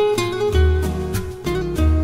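Instrumental passage of a Greek pop love song: plucked guitar notes over a deep bass line, with no singing.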